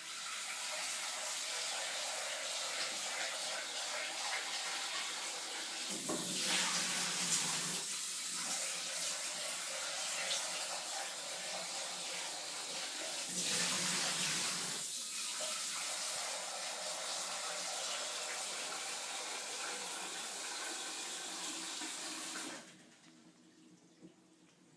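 Kitchen tap running steadily, filling a pan with water. The sound swells twice along the way, then cuts off suddenly a couple of seconds before the end as the tap is turned off.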